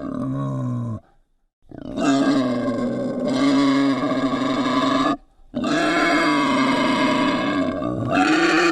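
Wild boar screaming: a call that breaks off about a second in, then two long harsh calls of about three seconds each with a short pause between.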